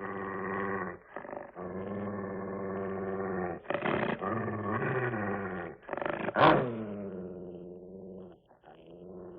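Dog growling in long, low growls with short breaks, rising to one loud, sharp snarl about six and a half seconds in that falls away in pitch, then quieter growling.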